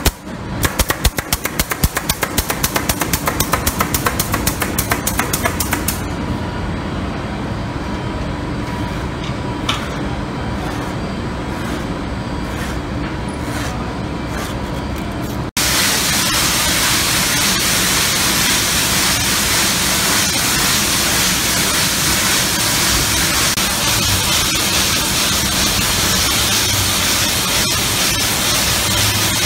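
Pneumatic staple gun firing a rapid run of shots, several a second, for about five seconds, over a steady machine hum. After a sudden cut about halfway through, a louder steady hiss of the carpet machine running takes over.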